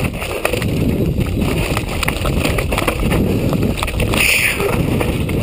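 Mountain bike descending a rocky trail: tyres clattering and crunching over loose stones and gravel, with many small knocks from the bike and wind buffeting the microphone.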